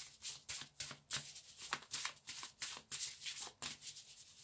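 A deck of astrology oracle cards being shuffled by hand: soft, quick flicks of card against card, about four a second.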